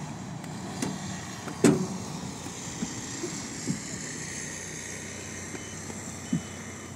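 Road traffic passing, a steady hiss that swells and fades in the middle. A sharp knock comes about a second and a half in, followed by a few lighter knocks.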